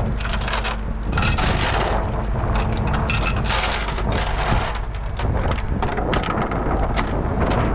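Tie-down chains and new chain binders clanking and clicking as the load is chained down: irregular metal knocks, with ringing metallic clinks near the end, over a steady low rumble.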